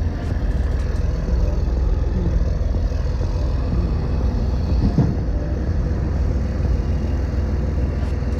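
Steady low rumble of city street background noise, with a short sound about five seconds in.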